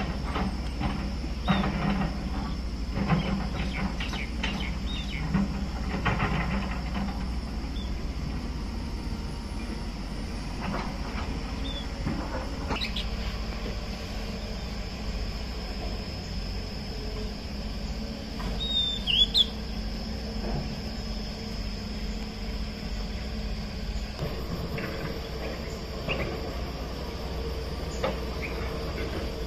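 Distant SANY excavator's diesel engine running as a steady low rumble, with a run of metallic knocks from the digging during the first several seconds. A steady insect drone runs over it, and a bird chirps once about two-thirds of the way through.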